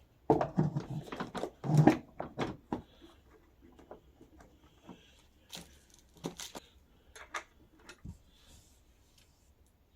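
Parts of a kids' ride-on car's back wheel being handled and fitted onto the axle, making a quick run of plastic clicks and knocks for the first few seconds, then scattered taps.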